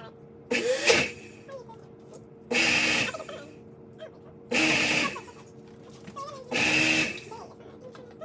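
Instant Pot Ace blender running its smoothie program in short pulses: four bursts of motor noise, each under a second long and about two seconds apart, with pauses between. This stop-start pattern is how the preset blends, in increments.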